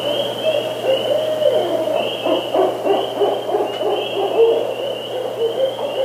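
Barred owl calling: a fast, irregular run of hoots, over a high chirp repeated about twice a second.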